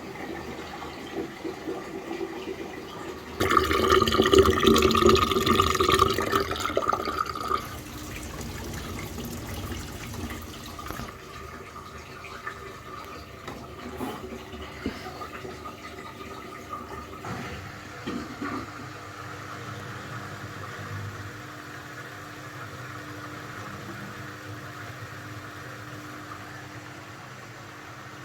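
Old Beko washing machine on its second rinse cycle: a loud rush of water for about four seconds, starting a few seconds in, then quieter water sloshing and the machine running on with a low hum.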